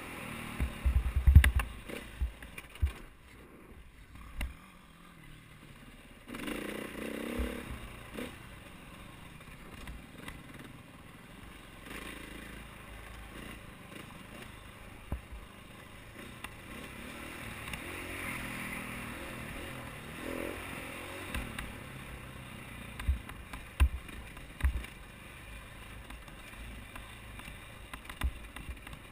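KTM 450 XC-W dirt bike's single-cylinder four-stroke engine running under changing throttle, its pitch rising and falling as the bike is ridden, with scattered sharp thumps and knocks, the loudest about a second in.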